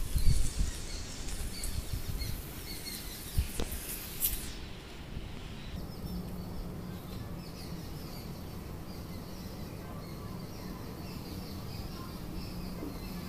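Faint bird chirps over outdoor background noise, with a few knocks and rustles in the first four seconds, then a low steady hum.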